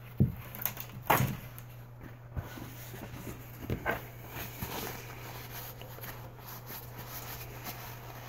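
Small metal model-engine parts handled on a hard countertop: a few light clicks and knocks in the first four seconds, then faint rubbing and rustling as a part is wiped with a paper towel.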